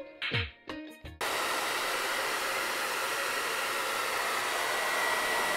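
Music tails off, then about a second in a handheld hair dryer starts abruptly and blows steadily, with a faint steady high whine in its rush of air.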